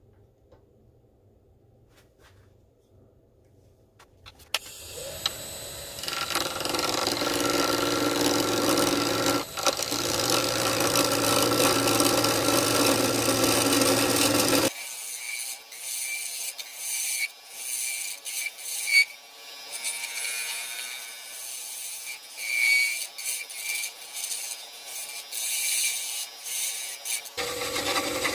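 After about four seconds of near silence with faint ticks, a wood lathe runs while a tool rubs and scrapes against the spinning maple blank. About halfway through, the sound changes abruptly to a thinner, higher, uneven rubbing with the motor hum gone. The fuller lathe sound returns near the end.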